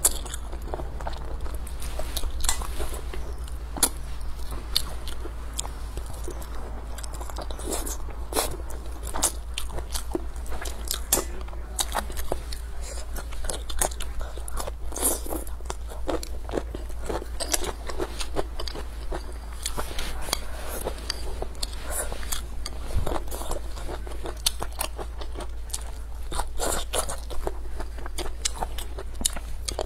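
A person eating close to the microphone, biting, chewing and crunching through braised squid and chicken feet in a dense run of short wet clicks, over a steady low hum.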